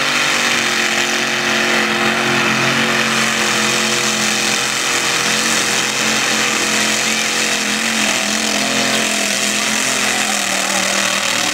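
Camaro-bodied 4x4 mega truck's engine running hard at high, nearly steady revs as it ploughs through a mud pit, the pitch sagging briefly about eight seconds in.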